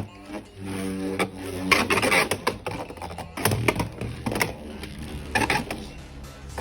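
Whale Wave 5-80E Beyblade X top spinning in a plastic stadium, clicking and rattling irregularly as it moves across the stadium floor and walls.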